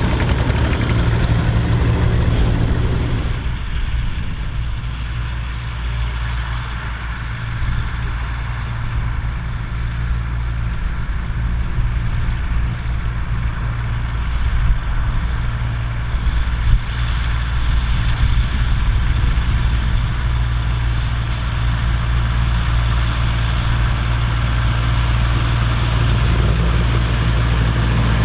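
Ferguson tractor with a four-wheel-drive conversion, its engine running steadily. The sound turns duller a few seconds in and fuller again near the end, with two brief knocks in the middle.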